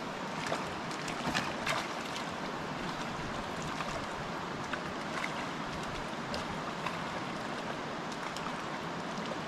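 Steady rush of a rocky mountain creek's flowing water, with a few sharp splashes in the first couple of seconds and fainter ones later.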